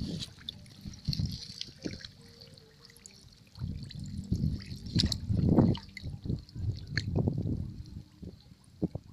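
Shallow swamp water sloshing and swishing in irregular surges, as legs wade through it, loudest in the middle of the stretch.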